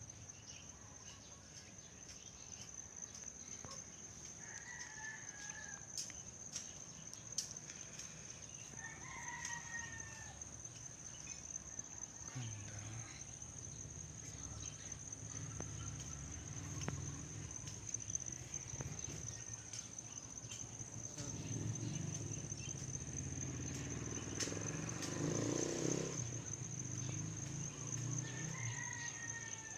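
A steady high-pitched insect trill of crickets, with a rooster crowing faintly a few times: about five seconds in, again around ten seconds, and near the end. A low rumble builds in the second half, loudest about twenty-five seconds in.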